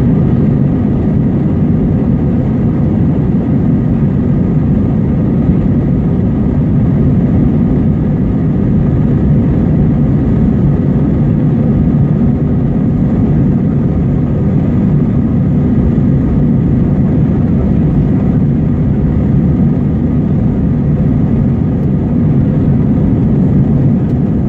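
Steady cabin noise inside an Airbus A321 taxiing: a low, even rumble of the jet engines at low thrust, with the airframe rolling over the taxiway and a few faint steady tones above it.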